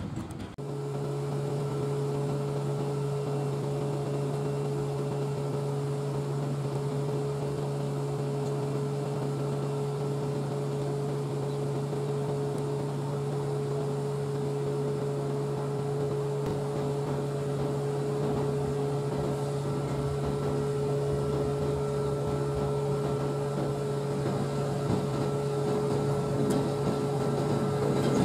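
Diesel-electric locomotive running light: a steady low engine drone with a higher hum above it. It grows a little louder and rougher near the end as the locomotive comes closer.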